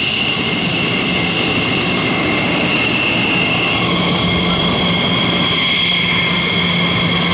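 F-15 fighter jets' twin turbofan engines running at taxi power: a steady loud rush with a high two-tone whine, which drops to a lower pair of tones about four seconds in as a second jet passes.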